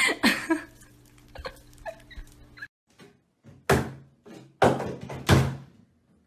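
Three loud, hollow thunks about a second apart, with a short ring after each, in a small bathroom.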